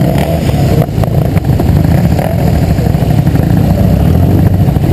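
Motorcycle engine running close to the microphone, loud and rough, with a few knocks about a second in.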